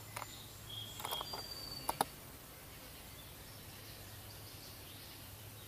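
Quiet outdoor background: a few light clicks and short high bird chirps between about one and two seconds in, over a steady low hum. No shot is fired.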